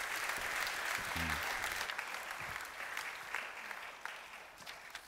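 Audience applauding, the clapping thinning out and fading over the last second or so.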